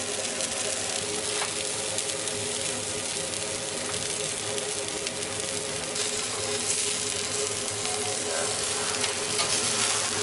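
Whole quail and sparrows sizzling steadily on a hot wire grill, with a few light clicks from metal tongs as the birds are turned. A steady hum runs underneath.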